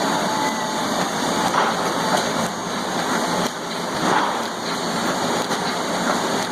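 1989 Roland 200 two-colour sheet-fed offset printing press running: a steady mechanical clatter with a regular beat about twice a second.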